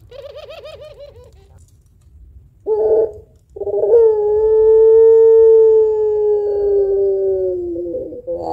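Puter pelung, a domestic ringneck dove bred for its long call, cooing: a quick wavering trill of about a second, a short note, then one long held coo of about four seconds that sinks slowly in pitch.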